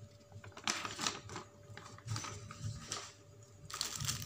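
Faint rustles and clicks from a paper instruction sheet being handled, then from near the end a steady crinkling of clear plastic packaging.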